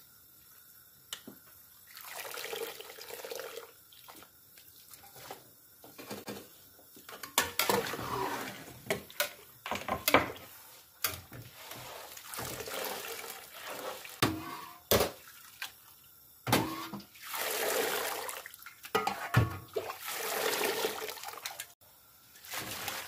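Shredded cabbage being scooped out of water in a stainless steel bowl with a wire spider strainer: water splashes and drips off the leaves in repeated spells, with sharp clinks of the metal strainer against the bowl and colander.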